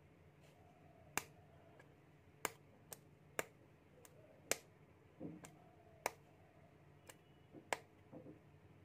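Homemade capacitor-bank spot welder discharging through a copper-pipe electrode into thin metal strips: a series of sharp snaps, roughly one a second, each one a weld spark. Soft handling rustle comes between some of the snaps.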